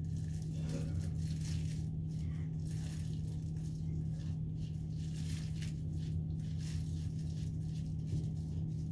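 Soft, irregular rustling and handling as plastic-gloved hands work hair dye through hair, over a steady low hum.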